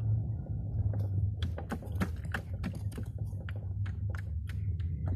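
Steady low drone of a vehicle crossing sand, heard from inside, with many irregular sharp clicks and small rattles over it.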